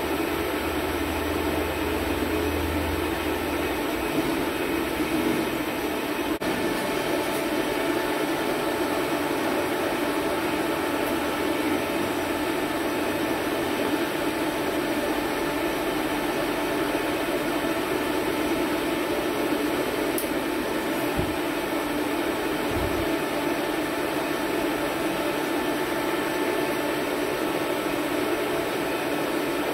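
Hafco AL-356V metal lathe starting up at the beginning and then running steadily, its chuck spinning a round metal bar while the cutting tool takes a facing cut across the bar's end.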